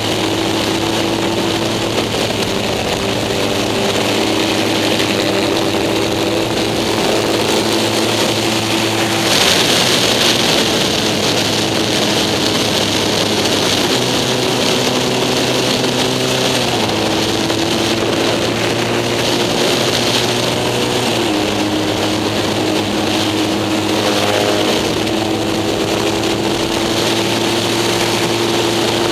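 Racing sidecar outfit's engine running hard at speed, heard onboard, its note shifting in steps several times through the lap, with a steady rush of wind noise that swells about nine seconds in.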